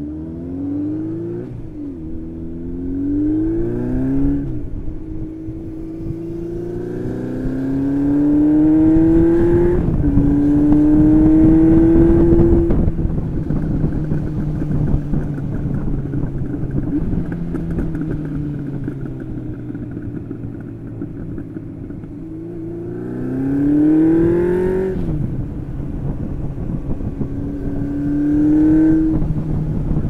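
Honda CB750 Seven Fifty's air-cooled, carburetted inline-four, on a stock exhaust run without mufflers, pulling up through the gears. The pitch climbs with the throttle and drops sharply at each upshift: two quick shifts early on, a long pull to about ten seconds in, a steadier cruise through the middle, then two more pulls and shifts near the end.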